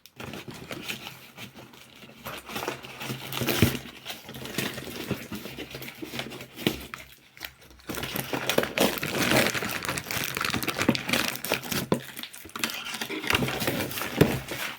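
A cardboard box and its packaging being torn open and crumpled by hand: irregular crackling and tearing, with short pauses about seven and twelve seconds in.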